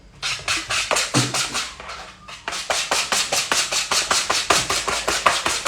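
A whisk beating eggs and sugar in a plastic mixing bowl, with quick rhythmic clicks of about six strokes a second and a brief lull about two seconds in.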